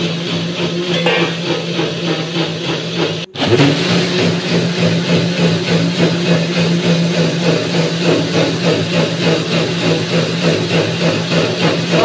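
Electric mixer grinder (mixie) running with a steady loud hum as it blends mango and sugar into a shake. The motor cuts out for a split second about three seconds in, then runs on again.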